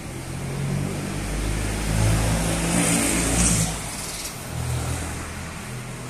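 A motor vehicle's engine passing close by, growing louder over the first few seconds and easing off after about four seconds.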